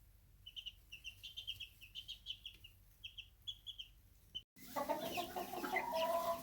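Young chicks peeping in a brooder: many short, high cheeps in quick bursts. About four and a half seconds in, an abrupt cut brings in louder, lower clucking and calls of adult fowl.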